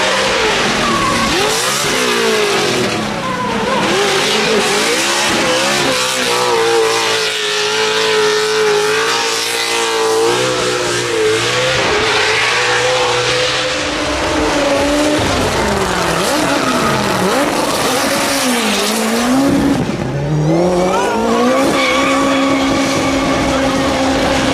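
Racing car engine revving hard, its pitch repeatedly rising and falling as it accelerates, slows and changes gear, with tyres squealing. Near the end the engine holds a steadier pitch.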